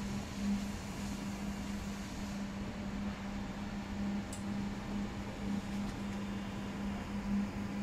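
Steady low hum of background room noise with a faint click about four seconds in.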